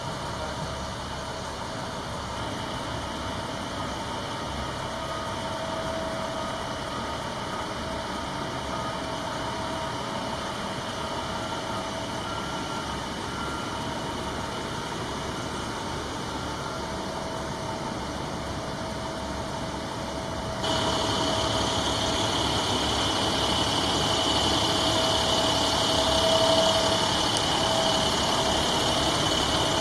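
Truck engines idling and running on a street, a steady engine noise with a thin steady tone over it. About two-thirds of the way in it jumps suddenly louder and brighter.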